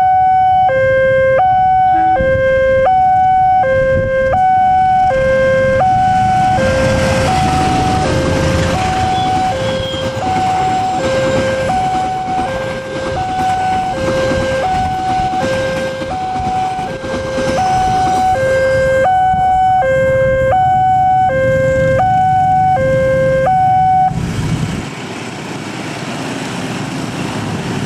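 Level-crossing warning alarm sounding from the mast loudspeaker, a high and a low note alternating about once a second. A passenger train runs past underneath it with a steady rumble of wheels on the rails. The alarm cuts off about four seconds before the end, leaving motorcycle engines running at the crossing.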